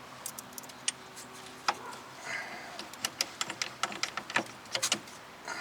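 Irregular metallic clicks and knocks as a screwdriver levers and rocks a steering knuckle against the strut bracket to line up the bolt holes.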